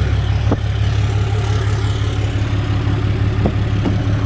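6.7-litre Cummins inline-six turbo diesel in a 2008 Dodge Ram 2500 idling steadily with a deep, even rumble. It runs through a 4-inch MBRP turbo-back exhaust with no tip, with the DPF and EGR deleted.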